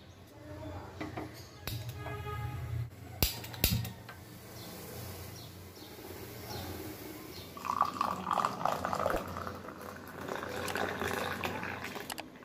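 Milk poured into an aluminium pot on a gas stove, with two sharp metal clanks a little over three seconds in. Then the milk bubbles and froths as it boils, loudest in the second half.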